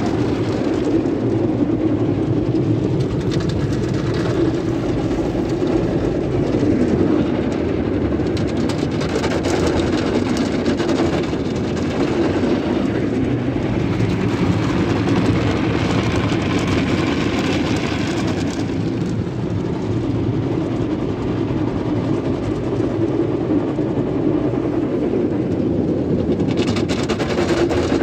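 Sonny's tunnel car wash heard from inside the car: cloth brushes rubbing over the windows and body while water sprays onto the glass, a steady dense wash of noise. A brighter hiss stands out for about ten seconds in the middle.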